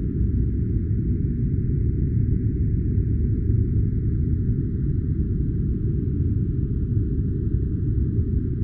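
Steady deep rumbling noise of an artificial sleep-sound noise track, with almost all of its energy low down and nothing changing over the seconds.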